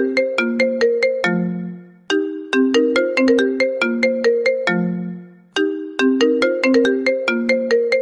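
iPhone ringtone: a short phrase of quick plucked notes that opens on a low held note and repeats about every three and a half seconds.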